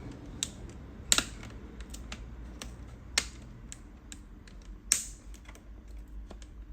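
Laptop's plastic screen bezel being pried off with a plastic prying tool: a string of sharp plastic clicks and snaps as the bezel works free, with the loudest about a second in, others near three and five seconds, and lighter ticks between.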